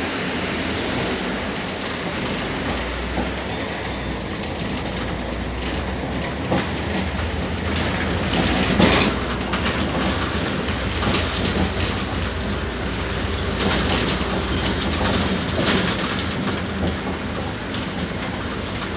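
Cabin noise inside a moving articulated city bus: a steady low engine hum under road noise, with the seats, poles and body panels rattling. A few louder knocks and rattles come about halfway through.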